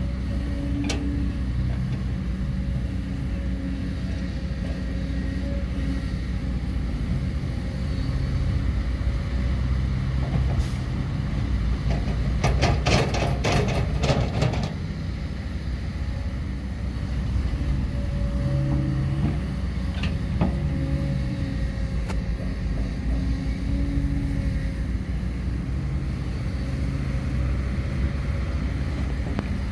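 Heavy machinery engine running steadily, with a burst of rattling metal clatter about halfway through.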